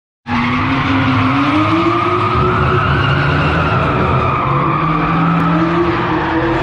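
Car engine revving hard while drifting, with tyres squealing on concrete. The engine note holds high and wavers up and down as the throttle is worked, and the sound starts abruptly a moment in.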